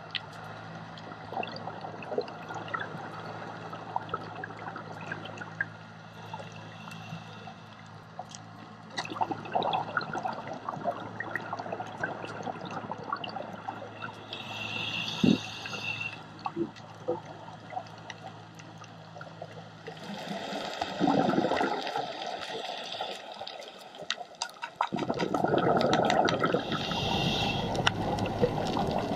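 Underwater sound of a reef dive: a steady wash of water with bubbling and many scattered short clicks. It grows louder and fuller for the last few seconds.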